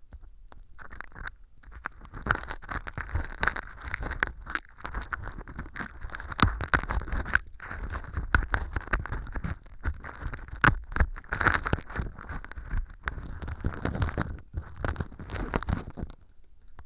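A stainless steel earpick scraping fake earwax of styrofoam powder and sawdust out of a transparent ear-canal tube, with dense crackling scrapes and clicks in strokes broken by short pauses.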